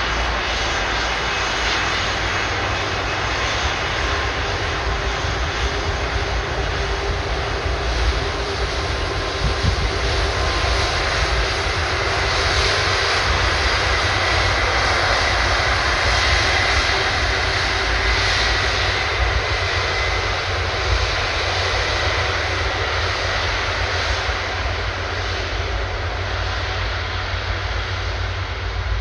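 Airbus A330 turbofan jet engines at high takeoff power: a loud, steady rushing jet noise with a faint high whine, swelling slightly midway.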